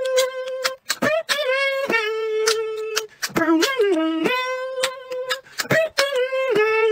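A person beatboxing: a held, sung vocal tone that sometimes dips and slides in pitch, broken by sharp mouth-percussion clicks and pops.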